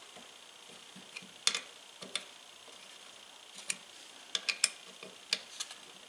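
Irregular small metallic clicks and taps from handling and adjusting the head of a Vevor bench wire stripper, about a dozen in all, the sharpest about a second and a half in and a cluster of several around four and a half seconds in.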